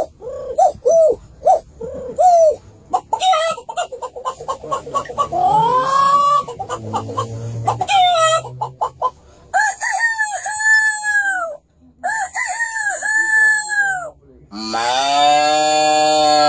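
A man imitating chickens with his voice: a run of short clucks, then longer rooster-like crowing calls, the last one long and loud near the end.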